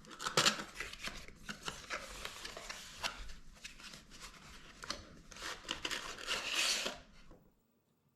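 Product packaging being handled and opened: irregular rustling, scraping and light clicks of cardboard and plastic, with a longer rustle about six seconds in that stops a second later.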